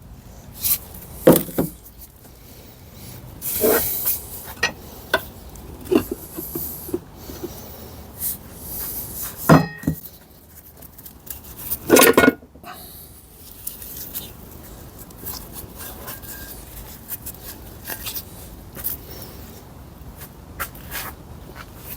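Irregular clanks, knocks and rattles of metal tools and gearbox parts being handled, with a few sharper knocks about a second in, near the fourth, around the tenth and about twelve seconds in.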